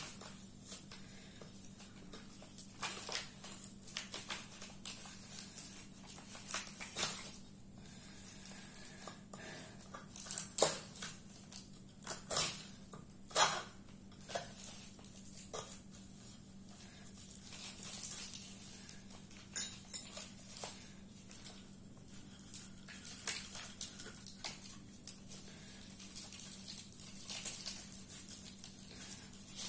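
Hands breaking and picking dried cow-dung crust off a clay pot: irregular crackles, clicks and small knocks as clods crumble and drop onto paper and the tiled floor.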